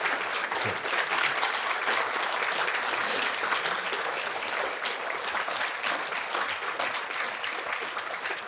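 Audience applauding: a dense, steady clatter of many people clapping.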